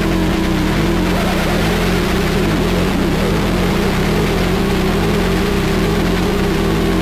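Harsh noise music: a dense, unchanging wall of static with a steady low drone beneath it.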